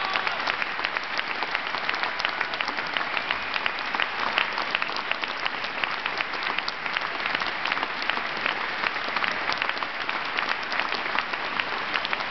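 Theatre audience applauding: dense, continuous clapping from a large crowd at a curtain call.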